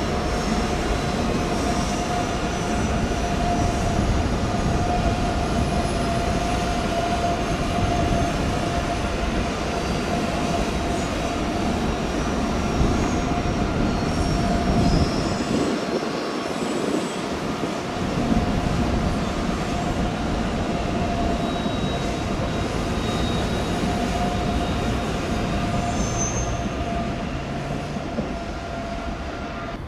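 DB ICE high-speed train rolling slowly past: a steady rumble of wheels on rail with a steady high whine held over it. It fades right at the end as the last car goes by.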